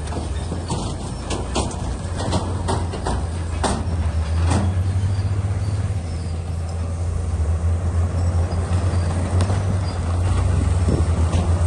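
Bulldozer's diesel engine running steadily under load, with a series of sharp knocks and clanks in the first few seconds as it works rock.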